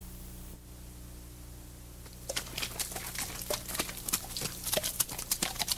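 A low steady hum, then from about two seconds in an irregular run of horses' hooves clopping, several strikes a second, as horses walk.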